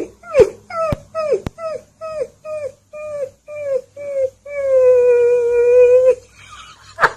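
A puppy howling: a run of short falling 'woo' notes, about two a second, then one long steady howl held for about a second and a half.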